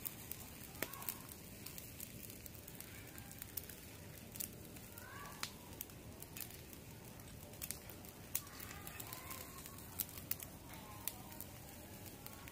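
Satay-marinated chicken feet grilling on a wire rack over hot charcoal: irregular sharp crackles and pops.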